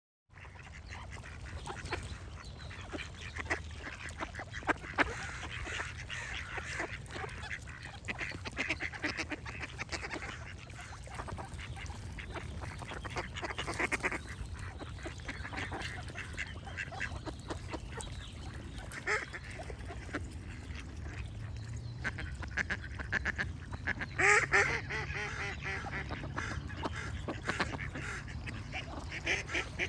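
Ducks quacking in repeated short runs, with songbirds singing behind them. The loudest run of quacks comes about 24 seconds in. A steady low rumble runs underneath.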